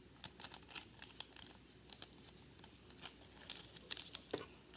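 Folded paper fortune teller crinkling and rustling in the hands as it is handled, in irregular small crackles, with a soft knock about four seconds in.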